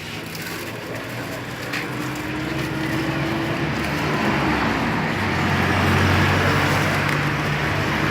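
A motor vehicle on the road approaches and passes, its engine and road noise growing louder to a peak about six seconds in.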